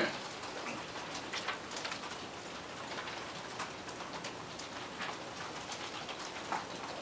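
Several computer keyboards being typed on at once: a patter of irregular key clicks over steady room noise.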